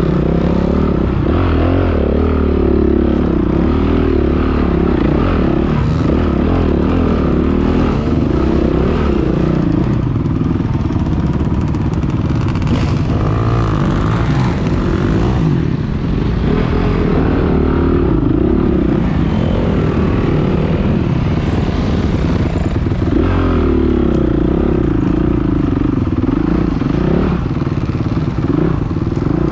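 Enduro dirt bike engine running under load on a steep rocky climb, its pitch rising and falling repeatedly as the throttle is worked on and off.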